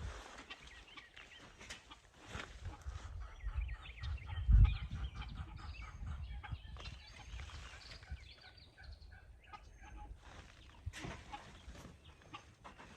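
Chickens clucking in short, repeated calls, with scattered knocks. A single loud, deep thump about four and a half seconds in.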